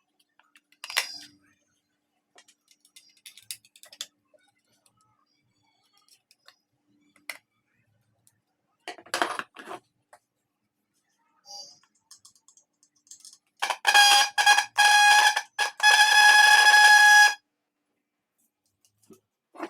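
Motorcycle electric horn sounding on test after repair: a few short beeps in quick succession, then one longer blast of about a second and a half. Before it come scattered clicks and knocks of handling.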